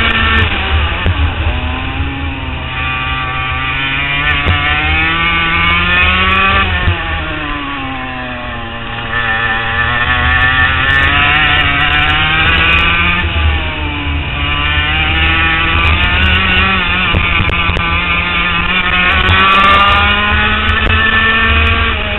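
HPV 100 kart's two-stroke engine heard onboard at racing speed, its revs climbing and then dropping several times as it accelerates out of corners and slows into the next, with a steady low rumble underneath.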